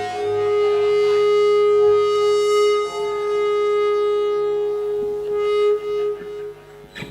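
Instrumental song intro: one long held note with rich overtones, in the manner of a synthesizer or reed-like lead, over faint keyboard. The note fades out about six and a half seconds in, leaving a few quiet clicks.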